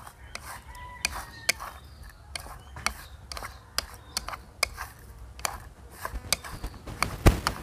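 Chopsticks clicking and tapping against a bowl while tossing pieces of small seasoned fish, in irregular sharp clicks about two or three a second, with a heavier knock near the end.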